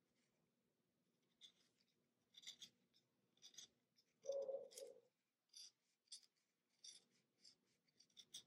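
Utility-knife blade shaving the wood from a Faber-Castell 9000 HB pencil: a string of short, faint scraping strokes, with one longer, lower and louder scrape about halfway through.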